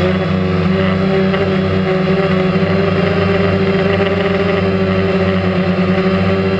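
DJI Phantom quadcopter's motors and propellers running with a loud, steady hum of several even tones, heard up close from the drone's own camera in flight.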